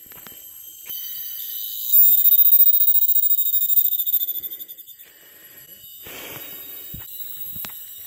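Cicadas singing, so loud: a high-pitched, pulsing drone that comes in about a second in, peaks from about two to four seconds, then fades away.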